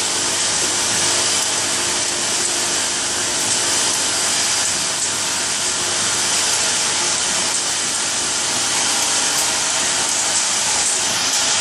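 Automatic nail polish filling and capping machine running: a steady hiss with a faint hum underneath.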